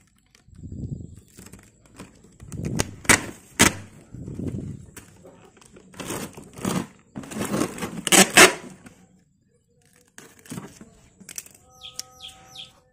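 Clear packing tape being pulled off the roll in a series of loud rips and pressed onto a cardboard box. Near the end, chicks peep in short falling chirps.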